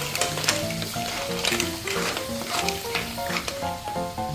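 Clams in their shells being stirred with a wooden spatula in a sizzling steel wok, the shells clacking against each other and the pan at irregular moments, over background music.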